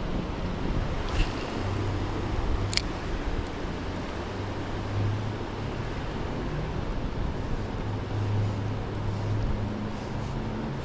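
Steady rush of flowing river water with a wavering low rumble, and two sharp clicks about one and three seconds in.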